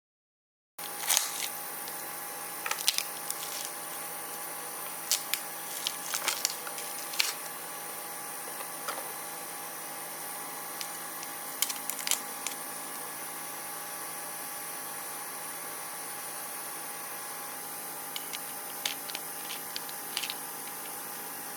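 Steady electrical hiss with a faint hum, starting abruptly after a moment of dead silence, broken by scattered small clicks and ticks, a cluster of them near the end.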